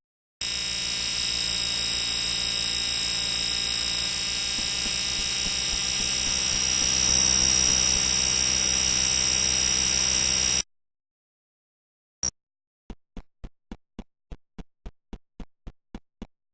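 Fire alarm sounding one continuous steady tone for about ten seconds, starting and cutting off abruptly. After a pause, a single click, then a run of evenly spaced clicks at about four a second.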